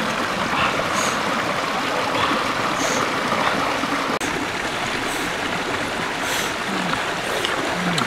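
Running water, a steady even rush.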